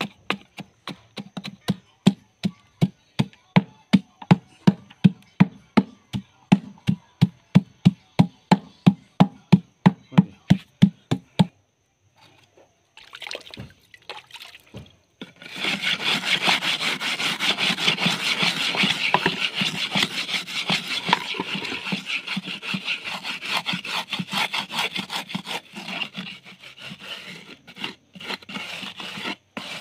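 Concrete mix being tamped in a steel brick mould, a steady run of thuds about three a second that stops about 11 seconds in. From about 15 seconds a wooden board is scraped back and forth over the wet concrete to level and smooth the top, a fast continuous rasping.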